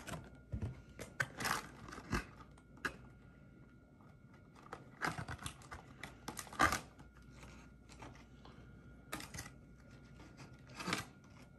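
Plastic rustling and light clicks from card sleeves and rigid top loaders being handled and rummaged through, in scattered bursts a few seconds apart.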